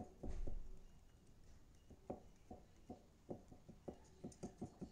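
Fingers handling a small phone charger plug and its cable: a low bump about half a second in, then a quick run of light clicks and taps, about three or four a second.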